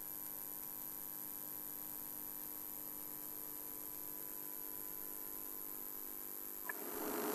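Faint steady electrical hum and hiss with several thin steady tones. A click comes near the end, and then a louder steady noise swells back in.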